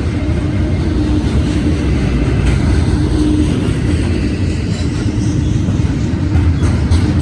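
Freight train rolling past at a grade crossing: a loud, steady rumble of wheels on rail, with a few sharp clicks near the end.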